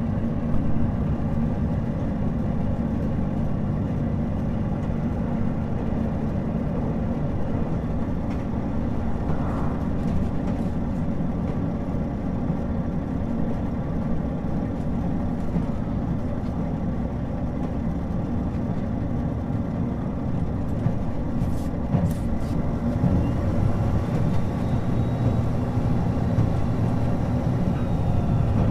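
Running sound of a JR Shikoku 2000-series diesel tilting railcar heard from on board: the diesel engine drones steadily under the rumble of the wheels on the rails. The low drone grows a little louder near the end.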